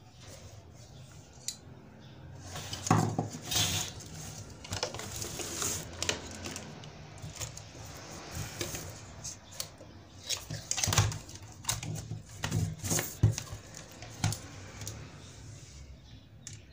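Irregular clicks, knocks and light clatter of a computer LCD panel being taken apart by hand: the thin glass display layer and sheet-metal frame lifted, shifted and set down on the bench.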